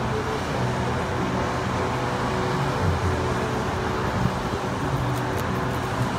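Steady outdoor noise of rain with a distant town traffic rumble, under faint, low, sustained tones of background music.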